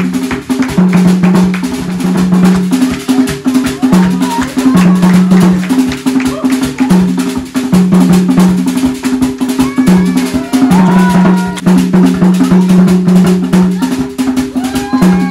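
Fast drum-driven music with a dense rapid beat over a repeating low note pattern, and short vocal calls now and then.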